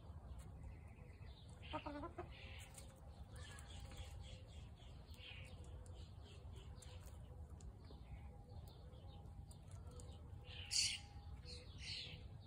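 Chickens clucking and calling, with many short high chirps throughout, a lower call about two seconds in and a louder high call near the end.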